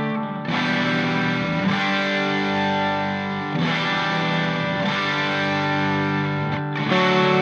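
Background music: distorted electric guitar playing sustained chords that change every second or two.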